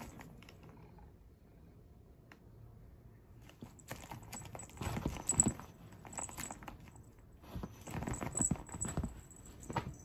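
Kitten scuffling with a wand toy on a leather armchair: paws and claws scratching and tapping on the leather, with the toy rustling. This comes in two bouts of rapid clicks and scrapes after a few quiet seconds.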